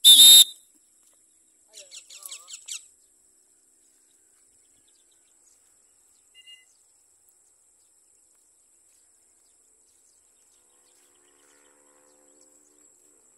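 A pet parrot gives one loud, harsh, high-pitched screech, then a quick run of about six shorter squawks around two seconds in. A faint steady high whine runs underneath.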